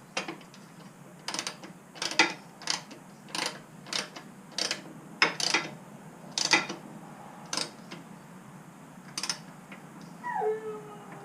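Hand ratchet clicking in short, irregular strokes about once or twice a second as a bolt is snugged down by hand. Near the end a brief tone slides down in pitch and then holds.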